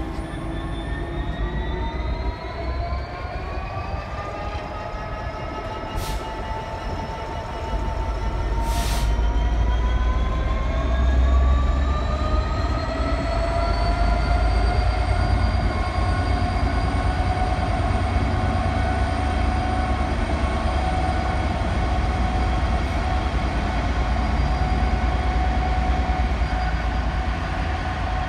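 Class 66 diesel locomotive with its two-stroke EMD engine working under power as it pulls a freight train away, the engine note rising steadily for about fourteen seconds and then holding, over a deepening rumble. There are two brief hisses about six and nine seconds in.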